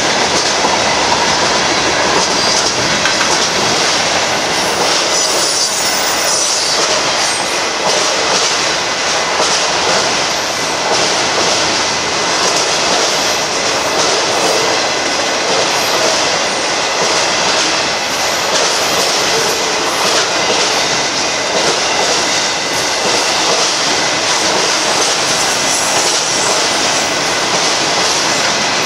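Freight cars of a Union Pacific manifest train rolling steadily past at a grade crossing: the continuous, loud noise of steel wheels running on the rails.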